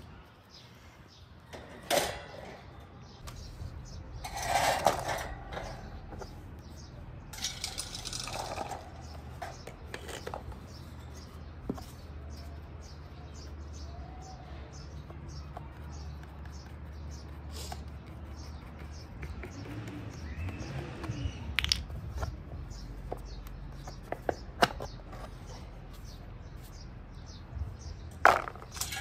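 A pedestal fan being taken apart by hand: the wire grilles and plastic blade and hub parts clicking, knocking and rattling as they are handled. The louder knocks and rattles come about two and five seconds in and near the end, with a steady low hum underneath.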